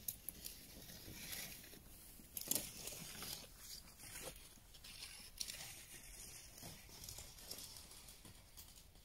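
Faint crunching and crackling of snow under a bicycle's tyres and a towed sled's runners as they pass, with scattered clicks and a louder crunch about two and a half seconds in.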